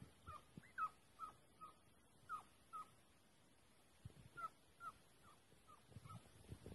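Hunting hounds baying faintly from across the hillside, short falling yelps about two a second in two runs with a brief pause between: the pack giving tongue as it chases a roe deer.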